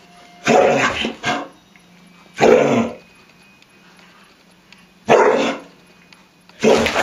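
Bull terrier barking in play, about five short, loud barks in irregular bursts.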